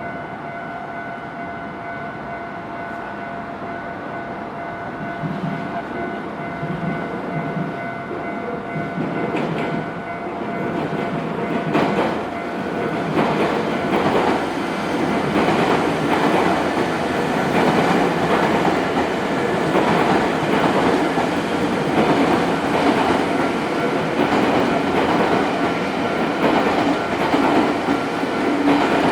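A train approaching and passing over a railway level crossing, its wheels clacking over the rail joints in a regular rhythm that grows louder about twelve seconds in, with steady ringing tones of the crossing alarm beneath.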